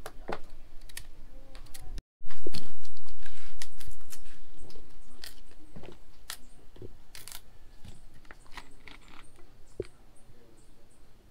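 Knife peeling the skin off green bananas: scattered small scrapes, snaps and tearing clicks. A short dropout about two seconds in, after which a loud, dull background sound fades away slowly.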